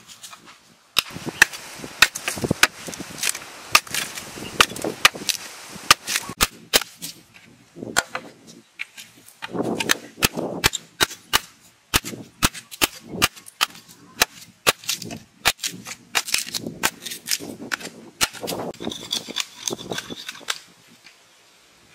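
A blade chopping at the base of a standing bamboo pole: a long, irregular run of sharp, hard cracks, often two or three a second, with scraping between strokes. The chopping stops shortly before the end.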